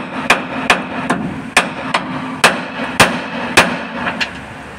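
Hammer blows on a truck propeller shaft's universal joint, knocking the joint out: about ten sharp metal strikes at an uneven pace of roughly two a second.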